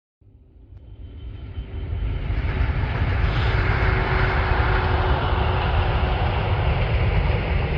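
A diesel train running past on the railway line, fading in over the first two seconds, then loud and steady.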